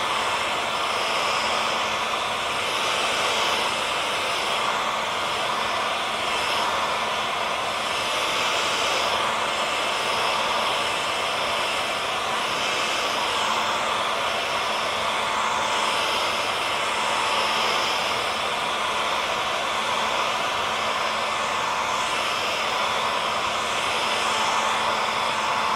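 Hair dryer running steadily: an even rush of blown air with a faint, constant motor hum under it.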